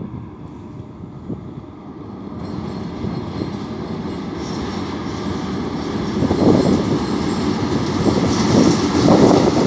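Freight train headed by a four-section set of 2ES5K Ermak electric locomotives approaching across a steel truss bridge, its noise growing steadily louder from about two seconds in.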